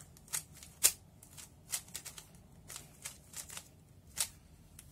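A 3x3 speedcube being turned by hand through an OLL algorithm: about nine quick plastic clicks, irregularly spaced, as the layers snap through each turn.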